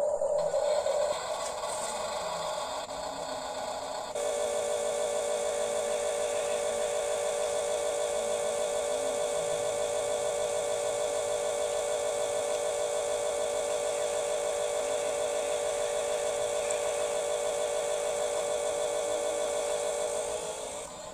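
Small electric motor and gearbox of a radio-controlled construction model whining at a steady pitch. The pitch shifts a couple of times in the first few seconds, then holds, and the whine drops away near the end.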